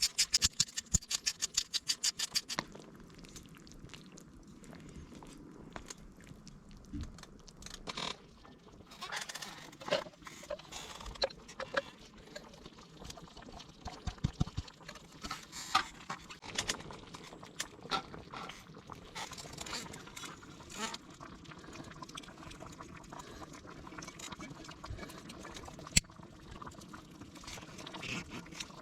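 Quick, even knife chopping on a cutting board, about seven strokes a second, stopping after two or three seconds, followed by scattered taps and clinks of food preparation.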